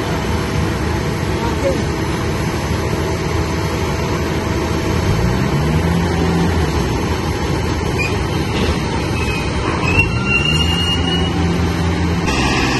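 Steady engine noise of airport ground equipment working at a cargo aircraft. Twice, about five and ten seconds in, an engine revs up and then holds at the higher speed.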